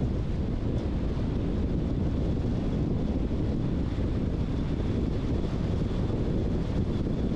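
Car driving along a road: a steady low rumble of road and wind noise.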